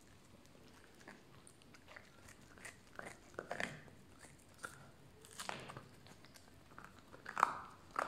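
A puppy gnawing and crunching on a big bone: irregular crunches and clicks of teeth on bone, sparse at first and busier from about three seconds in, with the loudest crunch near the end.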